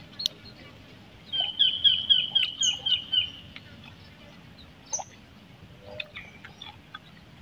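A bird calling nearby in a quick run of repeated chirping notes, about four a second for roughly two seconds starting about a second in, with a few short, higher calls from other birds.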